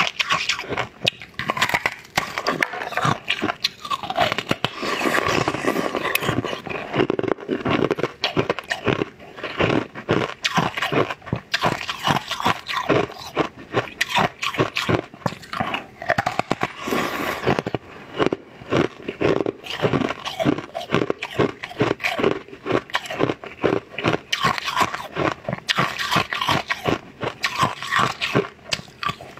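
Close-miked eating sounds: a person biting, chewing and slurping pieces of green jelly, with many quick wet crunches, several a second.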